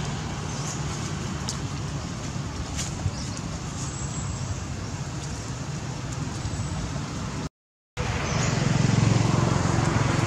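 Steady outdoor background noise with a low engine-like hum, like traffic on a nearby road, broken by a half-second gap of silence about three quarters of the way through, after which it returns a little louder.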